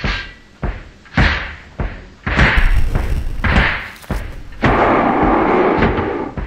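A series of sharp hits on a dramatic soundtrack, about one every half second to second, each trailing off in a rushing hiss; after about four and a half seconds it gives way to a steady rushing noise lasting nearly two seconds.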